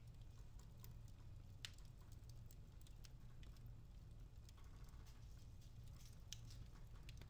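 Wood fire in a fireplace crackling faintly: scattered small ticks and pops, one sharper pop about a second and a half in, over a low steady hum.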